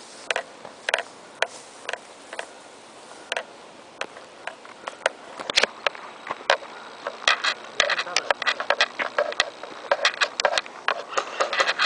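Sharp clicks and snaps, a few spaced about two a second at first, then coming thick and irregular from about halfway: airsoft guns firing in a skirmish.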